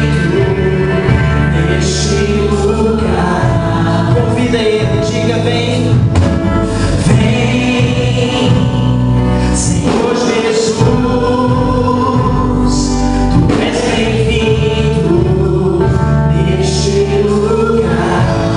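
Gospel worship song performed by a band, with a group of singers holding long sung lines over bass and drums, and cymbal crashes every few seconds.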